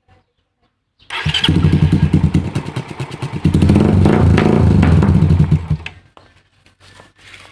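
Suzuki Raider 150's single-cylinder four-stroke engine running loud through a newly fitted AUN Bulate aftermarket exhaust pipe, revved up and down, for about five seconds before it stops.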